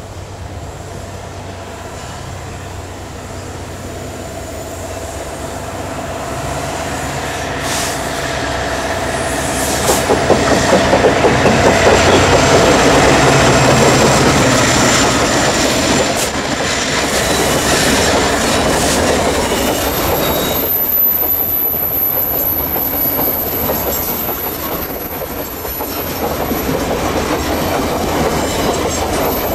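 Diesel locomotives hauling a long train of empty coal hopper wagons pass by, their engine sound building to a peak about a third of the way in. Then the empty wagons rattle and clack over the rail joints, and a thin high wheel squeal runs through the second half.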